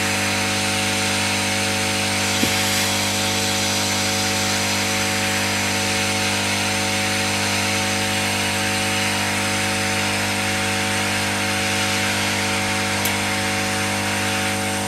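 Hot-air rework station blowing steadily, a hiss of air over a steady motor hum, as it heats an IC's plastic package at about 500 °C to crack it open.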